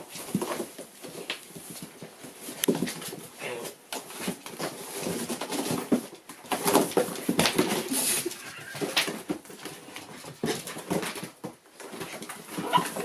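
Two Scottish Terrier puppies play-fighting on a cardboard box. Puppy whines and small yaps come mixed with claws scrabbling and cardboard rustling, in irregular bursts.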